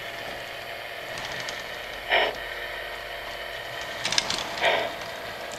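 O gauge model steam locomotive running along the track, with a steady electric hum, two short hissing bursts about two and a half seconds apart, and quick clicks of wheels on rail about four seconds in as it comes closer.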